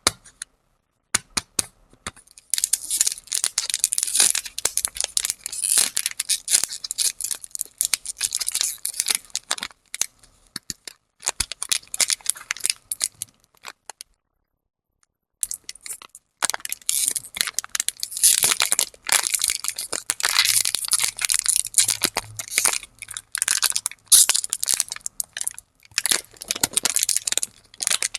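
Plastic lollipop wrappers being crinkled and torn open close to the microphone, in dense crackling bursts, with a silent pause of about a second and a half midway.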